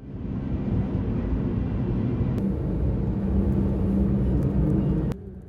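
A loud, steady low rumble that cuts off abruptly about five seconds in.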